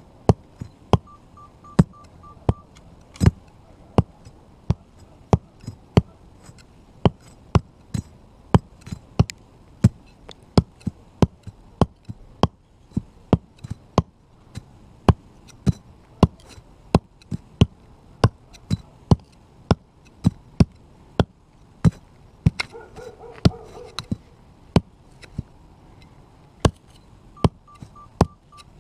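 Dawson Raider 5 knife driven point-first into a brick over and over, about two sharp strikes a second, chipping a hole into the brick as its tip is tested.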